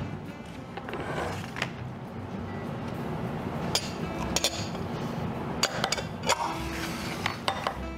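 Small glass bowls clinking against each other and the stone counter as they are handled and set down, several sharp clinks in the second half.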